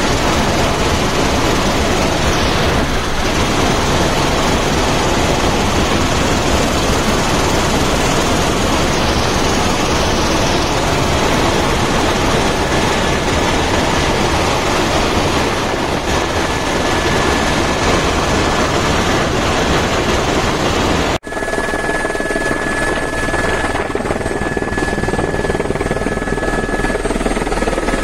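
Helicopter in flight heard from inside the cabin: loud, steady noise of rotor and engine. After a cut about 21 seconds in, the noise sits lower, with a steady high whine over it.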